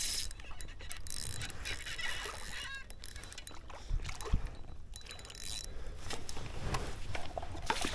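A hooked bass splashing and thrashing at the water's surface beside a kayak, the splashing building over the last couple of seconds, with water sloshing and fishing-reel and handling noises, and a sharp knock a little past halfway.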